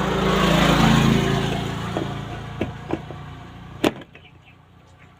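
A low, motor-like hum that swells to a peak about a second in and then fades, with a few light clicks, ending in a sharp click just before four seconds in.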